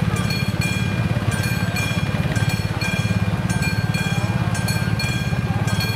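Level-crossing warning bell ringing on and on, with steady high ringing tones repeating in short rapid blocks. Beneath it an engine idles close by with a low, rapid pulse, likely the waiting police motorcycle.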